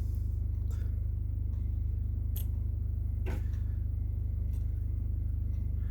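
A steady low hum, with a few faint, light clicks of small metal contact seesaws being dropped into a Mercedes W123 power window switch housing.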